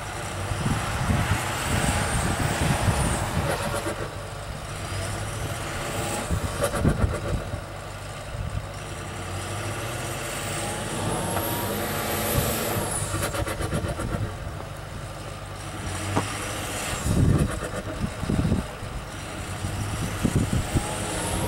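Ford F-350 plow truck's engine running and revving up and down while the truck is stuck in a bank of plowed snow.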